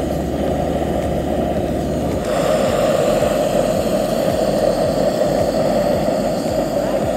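Gas burner of a Trangia-type camping stove running under an aluminium kettle: a steady roar that grows louder and brighter about two seconds in.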